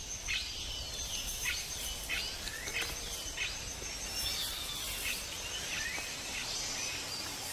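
Tropical rainforest ambience: a bird repeats short, falling chirps again and again, over a steady pulsing insect trill high above and a low background rumble.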